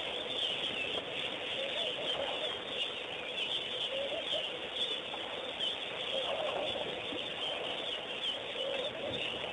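A busy chorus of many birds calling at once, high chirps layered over lower repeated calls, going on steadily.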